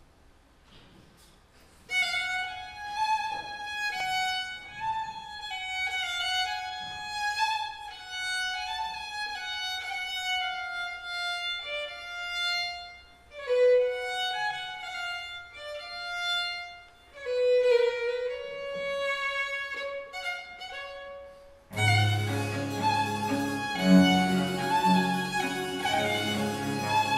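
A solo violin enters about two seconds in, playing a dance tune with sliding ornaments in an oriental-sounding makam mode. Near the end, lower instruments join with a bass line under the violin.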